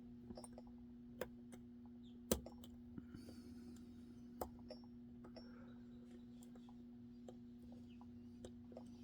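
Faint scattered metallic clicks and ticks of a lock pick working the pins inside an Assa Twin 6K lock, with the sharpest click a little over two seconds in.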